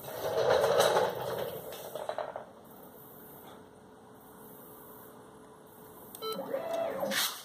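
Stepper motors of a homemade CNC pen plotter running under Mach3 control, whirring in short moves: a spell of about two seconds at the start, then stepped tones changing in pitch and a click near the end.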